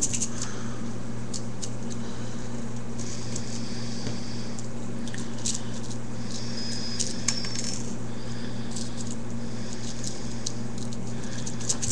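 Faint clicks and scratchy rustling of tiny metal fishing tackle, such as hooks, snap swivels and weights, being handled between the fingers. These sit over a steady low hum, and the clicks come most often in the middle of the stretch.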